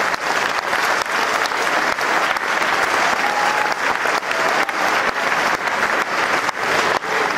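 Audience applauding steadily, a dense patter of many hands clapping in a large hall, in response to a joke's punchline.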